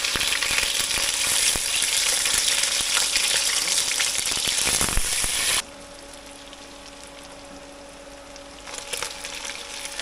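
Hairtail fish frying in hot oil in a wok, a loud, dense sizzle and crackle. About halfway through it cuts off suddenly to a quiet, steady low hum. Near the end, fainter sizzling starts up again and builds.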